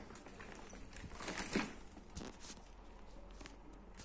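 A square insulated delivery backpack being handled and opened out: its nylon shell and foil-lined insulation rustle, with a louder rustle about a second and a half in and a couple of light knocks after it.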